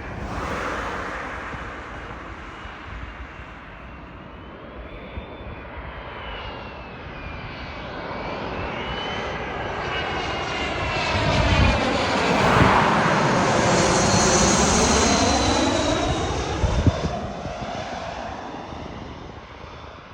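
Cessna 680 Citation Sovereign+ business jet's twin turbofans on landing approach, flying past. The engine noise builds to a peak about twelve to fifteen seconds in, with a high whine that shifts in pitch, then fades away.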